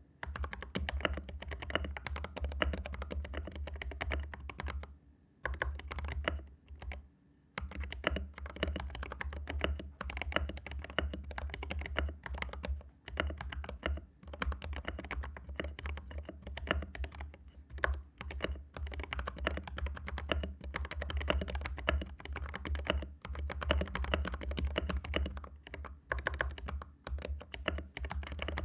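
Fast continuous typing on a Rexus Daxa M71 Pro mechanical keyboard with lubed Gateron linear switches and Akko ASA-profile keycaps: a dense run of keystrokes, pausing briefly about five and seven seconds in.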